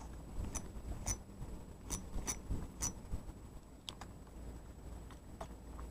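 Faint sharp ticks, each with a brief high ring, about two a second for the first three seconds and then only a couple more, over a low steady rumble of wind on the microphone.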